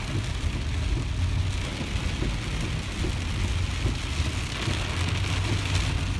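Torrential rain falling on a moving car, heard from inside the cabin as a steady hiss over the low rumble of the car and tyres on the flooded road.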